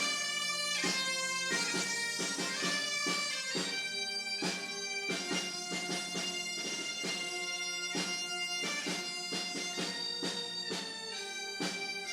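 Bagpipes playing a tune of quick-changing melody notes over a steady drone.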